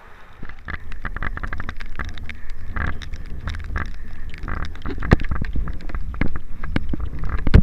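Wind buffeting the microphone of a hand-held camera carried by a runner, a low rumble with many irregular knocks from the camera jostling and footfalls on a wet paved path. It starts about half a second in.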